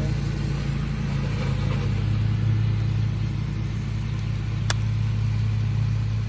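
A motor running steadily with an even low hum. A single sharp click comes a little over four and a half seconds in.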